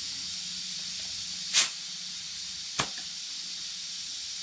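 Steady high hiss of outdoor background noise, broken by two short clicks a little over a second apart near the middle. The first click is the louder.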